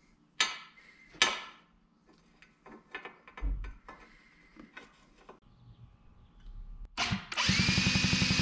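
A few sharp metal clicks as the spark plug is handled against the frame, then about seven seconds in the starter cranks the Yamaha Zuma's 49cc two-stroke engine with the spark plug out, a fast, even whirr, for a spark check.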